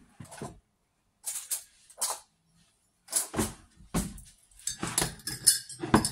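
Kitchen handling clatter: short knocks and clinks of jars, containers and a spoon being picked up and set down on a countertop, with ringing clinks in the last couple of seconds.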